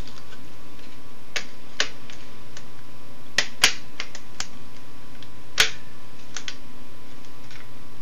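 Sharp plastic clicks and snaps as a socket 478 CPU heatsink-fan is pressed down and snapped into its retention bracket, a scattered series with the two loudest about three and a half and five and a half seconds in.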